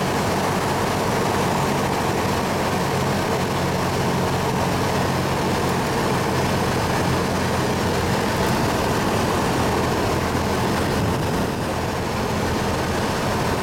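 Cessna 172's piston engine and propeller droning steadily, heard from inside the cabin on final approach.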